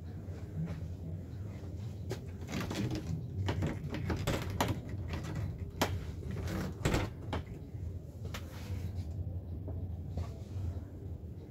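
A run of sharp clicks and knocks, thickest between about two and seven seconds in, over a steady low hum.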